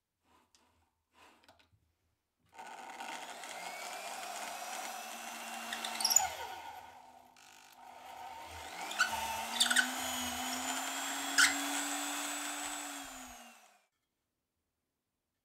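Corded electric drill mounted in a homemade wooden drill press, boring into a plywood disc. It runs twice: it starts, runs steadily and winds down, then starts again, rises in pitch while cutting with a few sharp ticks, and winds down near the end.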